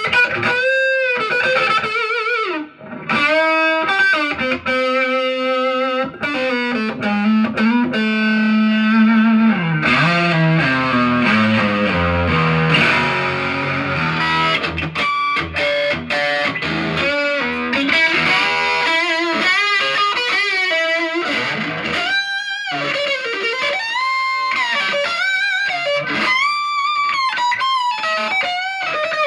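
Morris Hurricane Stratocaster-style electric guitar played through an amplifier: melodic single-note lead lines with wide vibrato and bends, with a stretch of lower notes in the middle.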